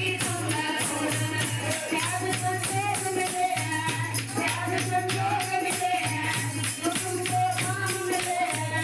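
Music: a song with singing over a quick, steady percussion beat.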